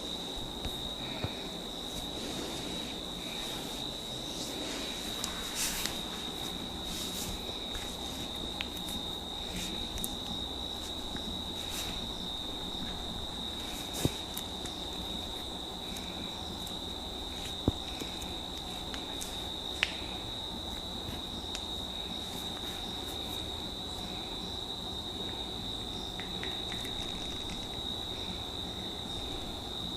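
Steady high-pitched insect trill, with a softer chirp repeating about every second and a few sharp snaps from the massage, the loudest three in the middle.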